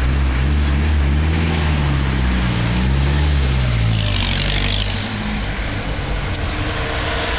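Motor vehicle engine running close by, a low drone that rises and falls in pitch, then drops away about five seconds in.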